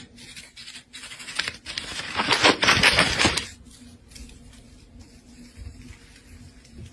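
Scratchy rustling and rapid clicking, loudest for about a second and a half near the middle, then dying down to a faint steady hum.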